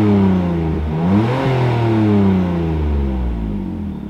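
BMW E46's M54 straight-six being revved: the revs fall away, climb sharply again about a second in, then sink slowly and drop back toward idle near the end. The engine runs smoother with a new cylinder 1 ignition coil fitted against a misfire, and its exhaust still has holes drilled in it.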